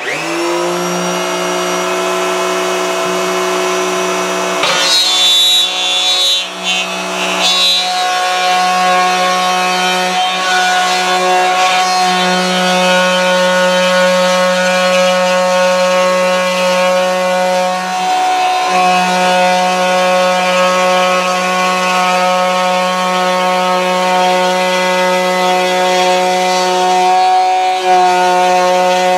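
Electric router in a router table switched on and spinning up with a rising whine, then running steadily at speed while its bit cuts a circle through a melamine template board turned on a pivot pin. Rougher cutting noise comes about five seconds in, and the motor's tone dips briefly twice.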